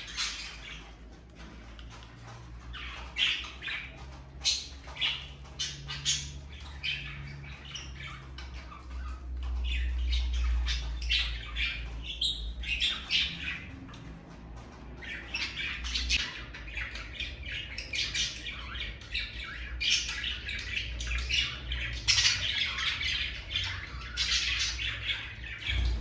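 Budgerigars chattering: many short, high calls overlapping one another, busiest in the second half.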